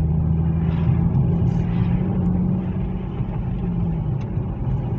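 2020 Toyota Supra's 3.0-litre turbocharged inline-six engine and exhaust under way, heard from inside the cabin over road and tyre noise. The low engine drone climbs a little in pitch, then fades about four seconds in.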